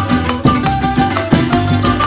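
Venezuelan parranda band playing an instrumental passage: maracas shaking over strummed cuatros, a mandolin, electric bass and a barrel drum, in a steady beat.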